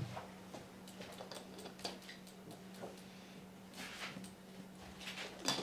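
Faint handling sounds of a plastic water bottle being picked up and drunk from: light scattered clicks and rustles, with a sharper click near the end, over a steady low hum.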